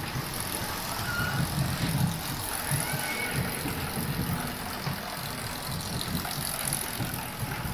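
Steady low rumble of workshop machinery, with an even hiss over it.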